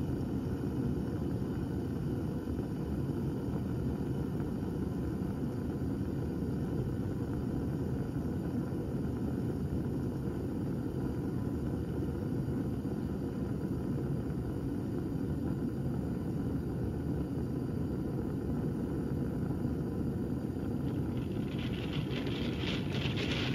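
A steady low rumble throughout. About two seconds before the end, a crackling, sizzling sound sets in as the heated water in a stoppered Erlenmeyer flask begins to boil, with bubbles forming and collapsing.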